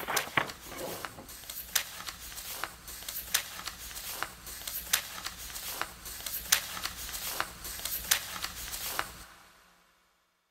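Irregular sharp clicks and crackles, a few a second, over a steady hiss, fading out to near silence about nine seconds in.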